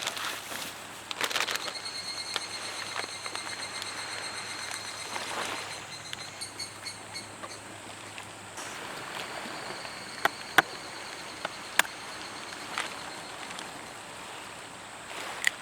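Steady outdoor rushing background noise, with a few sharp clicks and knocks of cooking utensils during food preparation: a pair about ten seconds in, another pair about a second later, and one more near the end.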